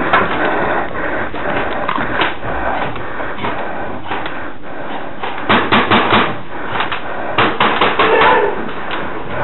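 Clatter and knocks in an echoing room, with two quick runs of sharp knocks about five and a half and seven and a half seconds in.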